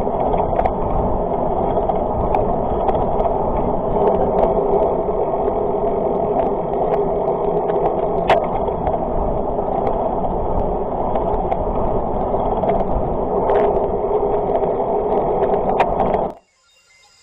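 Mountain bike rolling along tarmac, picked up by a camera mounted low on the fork: a steady rush of tyre and wind noise with a few sharp clicks and rattles from the bike. It cuts off suddenly near the end.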